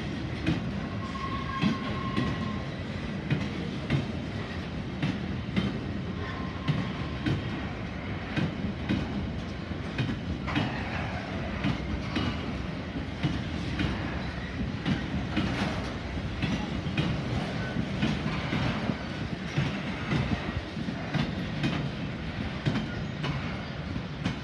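Freight train of double-deck car-transporter wagons rolling past at low speed: a steady rumble of wheels on rail with a rhythmic clickety-clack of wheelsets over the rail joints, about one click a second, and a brief faint wheel squeal now and then.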